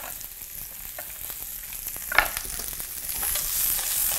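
Diced sweet potato and red pepper frying in a pan with a steady sizzle, stirred with a spatula that scrapes and clicks against the pan, with one sharp knock about halfway.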